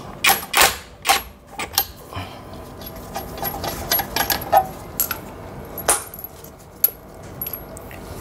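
Sharp metallic clinks and taps of loose steel wheel lug nuts being handled, with the cordless impact wrench set down. The clicks are scattered, not a steady rhythm, loudest just over half a second in and again near six seconds in.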